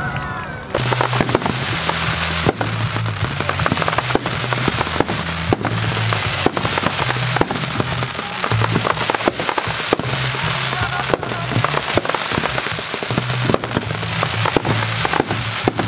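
Aerial fireworks display: shells bursting in rapid, uneven bangs over dense crackling that swells under a second in and keeps going. Music with a stepping low bass line plays underneath.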